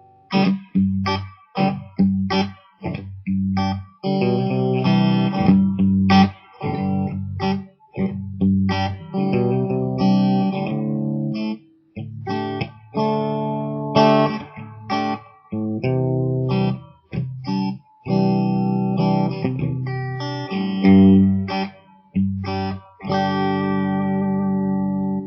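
Guitar playing a picked pattern over a G chord, single strings plucked one after another in a repeating figure, with several brief stops where the strings are damped.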